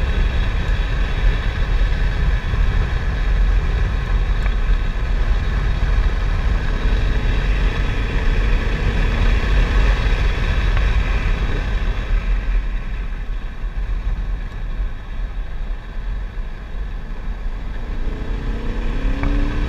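Chevrolet Corvette C7's V8 engine running hard at track speed, heard from inside the cabin along with wind and road noise. About two thirds of the way through the sound drops off and quietens, and near the end the engine note rises again as it pulls.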